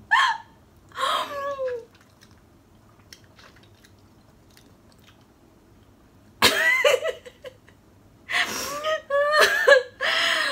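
A woman's short wordless vocal sounds, her voice sliding up and down in a few bursts at the start and through the second half, as she reacts while eating raw lemon wedges. They are her reactions to the sourness of the lemon.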